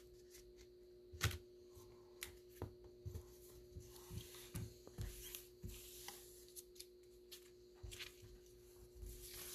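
Trading cards and rigid plastic top loaders being handled and set down on a wooden table: faint, scattered taps, clicks and short rustles.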